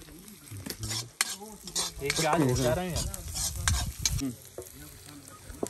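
Food frying in a kadhai over a wood fire, sizzling with sharp clicks as it is stirred. A louder, voice-like pitched sound comes in briefly a little after two seconds in.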